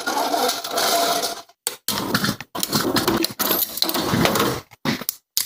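Scraping and clicking of metal brake-pad parts being handled: the clip-on damper plates being fitted onto new motorcycle brake pads. It stops abruptly twice.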